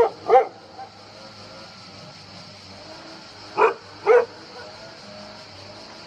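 A dog barking, two barks in quick succession twice, about three and a half seconds apart, over a steady background hum.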